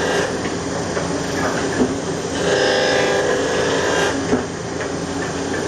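Muller Martini book-binding machine running in a repeating cycle: a humming stretch of under two seconds about every four seconds, with a sharp clack in between.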